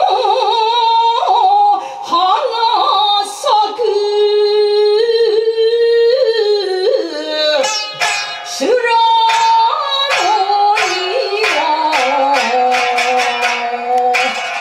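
A woman chants biwa narrative song in a long, wavering voice with sliding pitch, over occasional plucked notes of the biwa (Japanese lute). About halfway through, the biwa takes over with hard, rapid plucked strokes that come faster toward the end.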